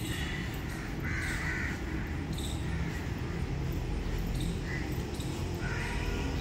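Crows cawing, several short calls spaced a second or two apart, the longest about a second in, over a steady low rumble.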